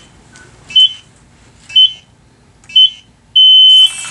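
Electronic countdown beeper. It gives short high beeps about a second apart, then one longer beep, marking the end of the mini-sumo robots' start delay. A rush of noise rises just as it ends, as the robots set off.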